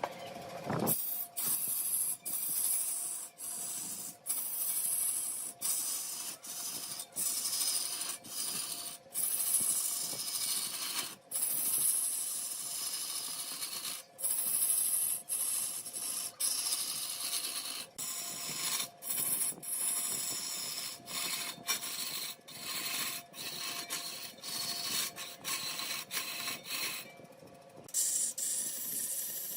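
A turning tool scraping and cutting wood spinning on a large wood lathe, a continuous rasping noise over a faint steady hum, broken by brief gaps every second or two.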